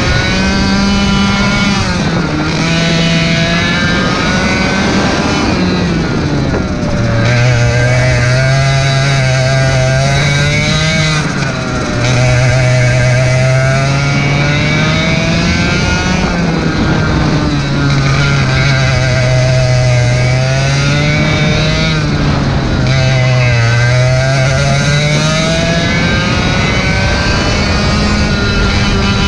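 Racing kart engine heard from onboard at full power, its pitch climbing steadily along the straights and dropping sharply into the corners, about five times over.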